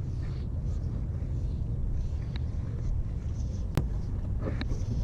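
Steady low rumble, with a single sharp click a little under four seconds in.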